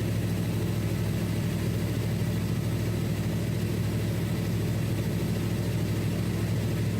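1995 Chevy Tahoe engine running steadily with the air-conditioning blower pushing air out of the dash vents, heard inside the closed cab: a constant low hum under an even rush of air.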